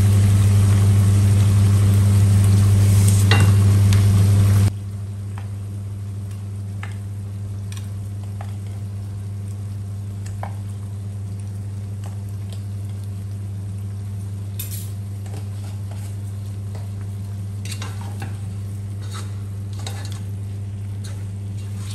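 Chicken sizzling as it fries over high heat in a pot, stirred with a wooden spatula, over a steady low hum. About five seconds in everything drops sharply in level, leaving a quieter sizzle with scattered clinks and scrapes of a spoon and spatula against a spice jar and the pot as salt and powdered masala go in.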